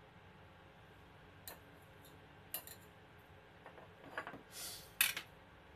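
A knife clicking and scraping against a serving tray as a slice of cake is cut and lifted out: a few light clicks, a short scrape about four and a half seconds in, then a sharper knock just after.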